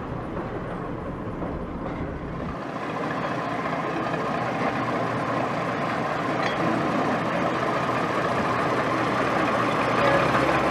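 Small narrow-gauge diesel locomotive engine running steadily, growing gradually louder as the locomotive approaches.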